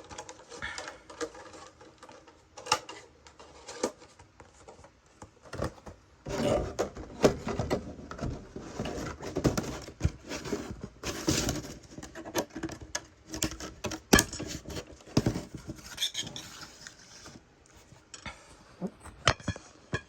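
Funko Pop cardboard box and its plastic insert being handled and opened to free the vinyl figure: irregular rustling, scraping and clicks, busiest in the middle stretch, with one sharp click about 14 seconds in.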